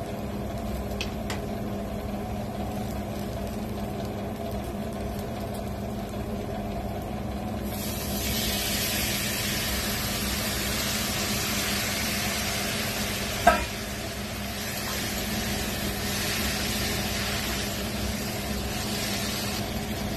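Raw chicken pieces tipped into a hot pan of fried onions start to sizzle about eight seconds in, over the steady hum of an induction cooker. About two-thirds of the way through there is a single sharp metal clink.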